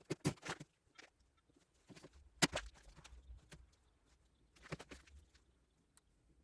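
Scattered light knocks and clicks of things being handled, irregular and a few at a time, with the sharpest knock about two and a half seconds in and a small cluster near five seconds.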